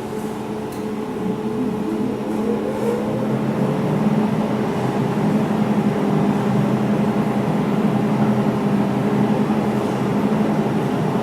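Laser jewelry welding machine running with its water pump on, filling the cooling system with purified water: a steady mechanical hum with a low and a higher tone, growing a little louder a few seconds in.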